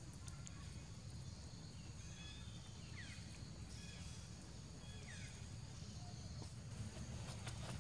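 Quiet outdoor ambience: a low steady rumble with faint high chirping calls, two of them short and falling in pitch about three and five seconds in.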